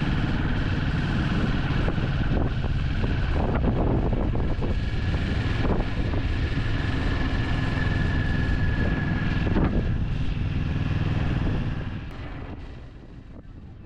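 Kawasaki Vulcan S 650 parallel-twin engine running while riding at road speed, with wind noise on the microphone. The sound fades down near the end.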